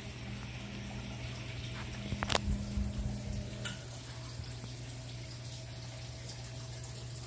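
Model train running on the layout: a steady motor hum and whirring hiss, with a sharp clatter a little over two seconds in and a lighter click about a second later.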